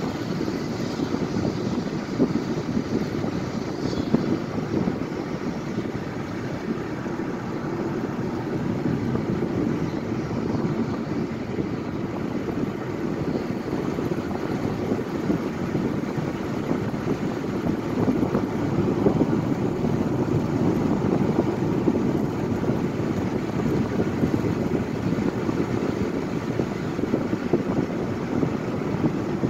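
Steady cabin noise of a car driving at road speed: a continuous low rumble of tyres on asphalt and engine, heard from inside the car.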